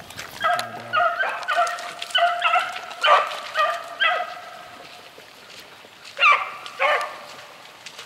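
Beagles baying as they run a rabbit's track: a quick string of short barks for about four seconds, then a lull and two more barks near the end.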